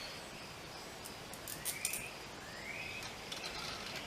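Quiet background hiss with three short rising bird chirps, and a brief cluster of light clicks from small mount hardware (spacer, washer, bolt) being handled.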